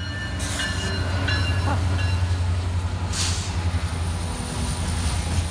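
Norfolk Southern diesel locomotives, the Wabash heritage unit among them, passing close by at the head of a coal train: a steady deep engine drone with rail and wheel noise over it.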